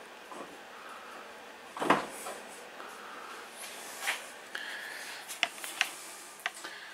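A single sharp knock about two seconds in, then a few lighter clicks and taps, over faint room hiss.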